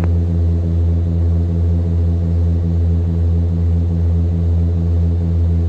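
Twin-engine Piper Aztec's engines and propellers running at climb power, props set to 2,500 RPM, heard inside the cockpit as a steady low drone with a regular pulsing about four times a second.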